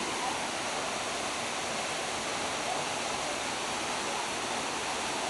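Waterfall: a steady rush of water falling onto rock and into a pool.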